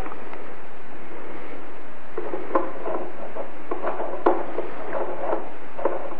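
Small plywood piggy bank being handled on a tabletop: an irregular run of light clicks and clinks starting about two seconds in, over a steady hiss.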